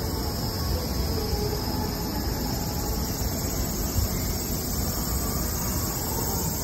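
Steady high buzzing of cicadas in the trees, over the low rumble of a pet stroller's wheels rolling on brick paving.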